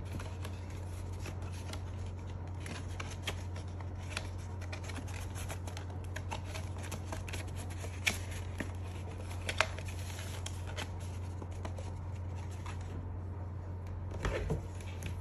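A sheet of paper rustling and crinkling as it is handled and wrapped around a plastic cup, with scattered light taps and two sharper clicks about eight and nine and a half seconds in.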